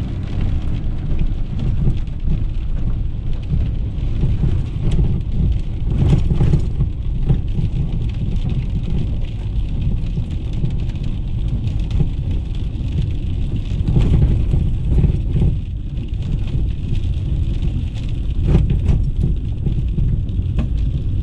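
Inside a truck's cab driving a wet gravel road: a steady low rumble of tyres and engine, with rain hissing on the windshield. The rumble swells briefly a few times, about six, fourteen and nineteen seconds in.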